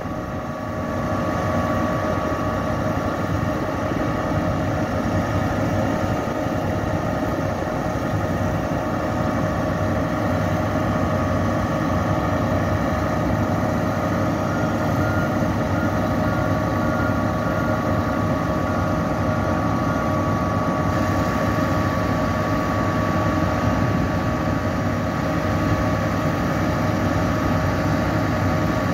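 Putzmeister 42-metre truck-mounted concrete boom pump running steadily while its boom is worked, its truck engine driving the hydraulics, with a steady whine over the engine. The boom is being tried out right after its cylinders no. 1 and 4 were repaired and refitted.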